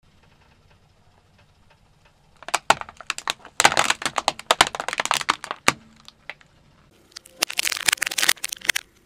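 Thin plastic face masks cracking and crunching under a car tyre. A dense run of sharp snaps lasts about three seconds, and after a short lull a second, shorter burst of cracks comes near the end.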